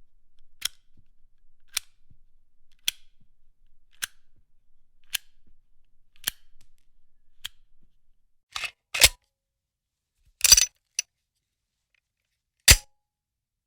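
Gun being reloaded: a series of light metallic clicks about one a second, then a few louder, sharp mechanical clacks in the last few seconds, the loudest near the end.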